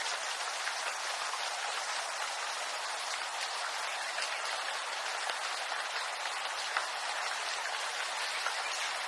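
Steady rain falling on bamboo leaves, a dense even hiss of drops with an occasional louder drop standing out, one about seven seconds in.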